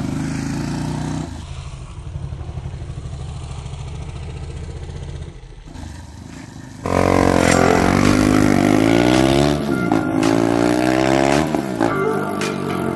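KTM Duke 390's single-cylinder engine idling with an even low pulse through a decat mid pipe and stock muffler without its dB killer. About seven seconds in, loud music cuts in over it.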